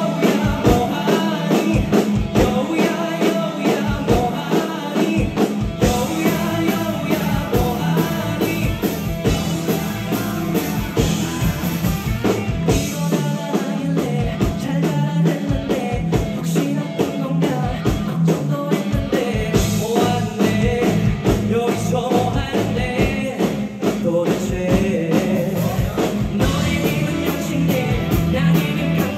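Live rock band playing an upbeat song, a drum kit driving a steady beat under singing.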